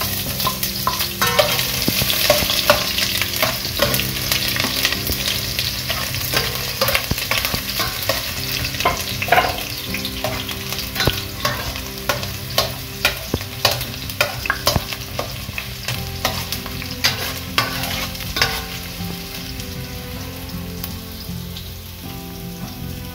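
Garlic, onion and morita chiles sizzling in hot oil, being sautéed (acitronados) for a mushroom broth base. A utensil stirs them with frequent clicks and scrapes, and the sizzle eases off near the end.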